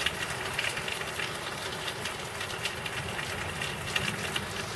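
Steady rain falling, with scattered drops ticking on nearby surfaces over a low, even rumble.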